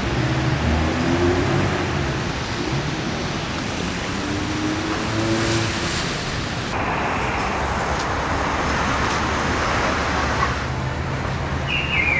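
City street traffic noise: a steady wash of passing cars, changing abruptly about seven seconds in.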